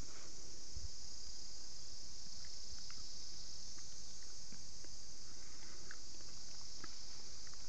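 Steady, high-pitched insect chorus that holds an even level throughout, with a few faint ticks here and there.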